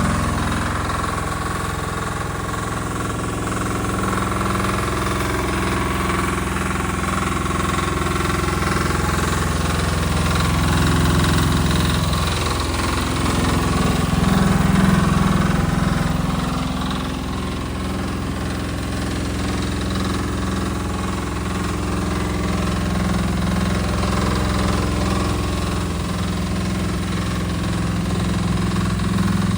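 JPC KV12 mini excavator's engine running steadily, with a brief dip in pitch about twelve seconds in.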